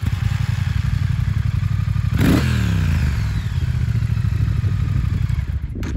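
2019 Triumph Speed Twin's 1200 cc parallel-twin engine running just after being started. It idles, gets one quick blip of the throttle about two seconds in that rises and drops back to idle, and cuts off near the end.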